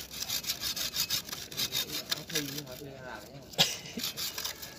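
Hand pruning saw cutting through the woody root of a hoa mua (Melastoma) bonsai stock in rapid back-and-forth rasping strokes. The strokes ease off for about a second past the halfway point, then pick up again.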